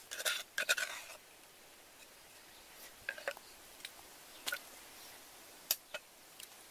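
Handling noise as ingredients are set out on a woven bamboo tray lined with banana leaf: crackly rustling in the first second, then a few scattered short clicks and rustles.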